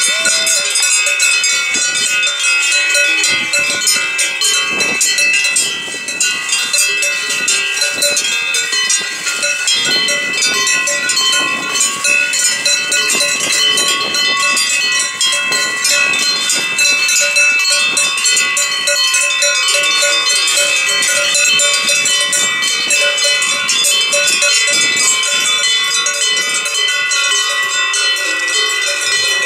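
Many cowbells on a moving herd of cows clanging and ringing together in a dense, continuous jangle.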